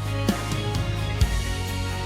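Background music with a steady drum beat and held instrumental notes over a bass line.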